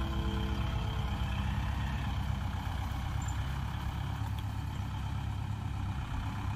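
Kubota rice combine harvester's diesel engine running steadily as the machine drives off, growing slightly fainter.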